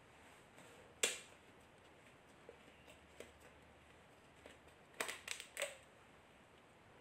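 Quiet room tone broken by a single sharp click about a second in and a quick run of three or four light clicks or taps about five seconds in.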